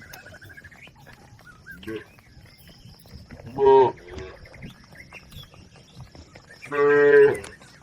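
Cattle mooing: a short moo about three and a half seconds in, then a longer, louder moo near the end.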